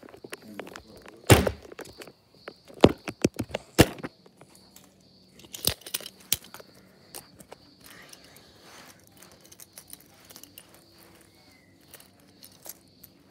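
Handling knocks and thumps as the phone or camera is moved down and set on the floor, several sharp ones in the first few seconds, then soft rustling and small clicks as toy vehicles are placed on a rug.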